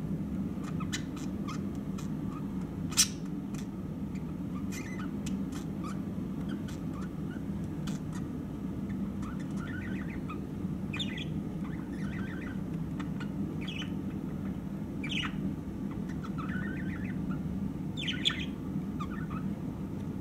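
Budgerigars chattering: scattered short chirps and squawks, with a sharp loud chirp about three seconds in and another near the end, over a steady low hum.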